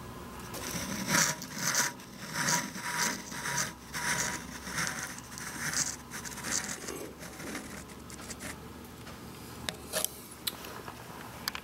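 Digital calipers' steel jaws rubbing and scraping along the machined cast-iron edge of a shaper casting in uneven strokes, about two a second, as the width is measured. A few sharp clicks follow near the end.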